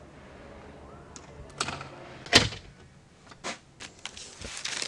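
A door shutting with a single bang about two seconds in, among a few lighter clicks. Sheets of paper rustle as pages are turned near the end.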